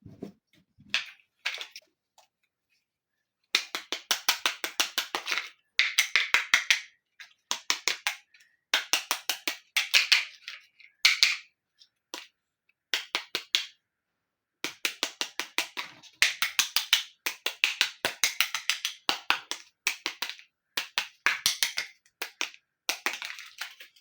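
Rapid runs of light tapping clicks on small hard toy pieces, several a second, in bursts of one to two seconds with short pauses between them.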